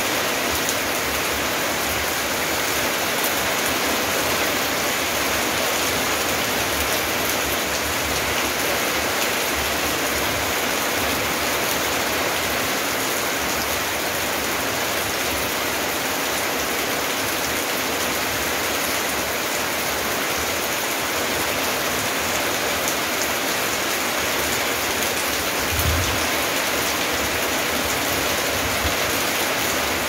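Steady rain falling on garden plants and wet paving, an even hiss of many drops. Near the end there is one brief low thud.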